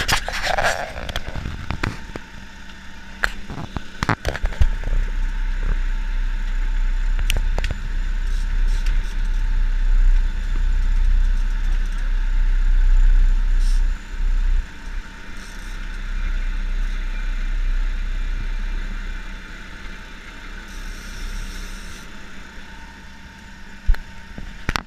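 Sport-fishing boat's engine running steadily, a low rumble that swells and fades over a constant hum, with a few sharp knocks in the first several seconds.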